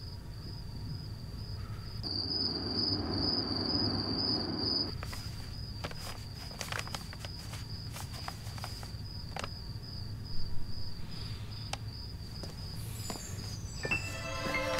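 Crickets chirping in a steady, evenly pulsing high trill. A rustling noise runs for about three seconds starting two seconds in, scattered light clicks follow, and music begins near the end.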